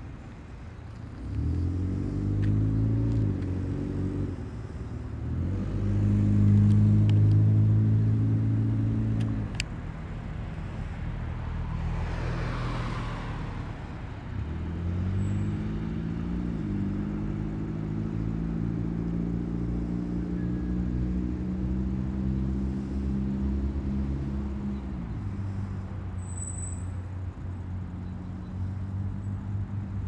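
Motor vehicle engines running nearby. An engine speeds up twice and holds a steady pitch for several seconds each time, then settles down near the end. Another vehicle passes about twelve seconds in.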